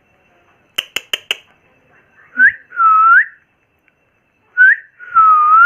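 Indian ringneck parrot whistling: twice a short rising chirp followed by a longer swooping whistle that dips and climbs again. A few quick clicks come just before the whistles.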